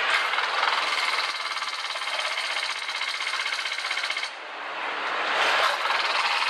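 Factory-floor noise on a truck-engine assembly line: machinery running with a fast mechanical rattle, and a thin steady whine in the middle that stops about four seconds in.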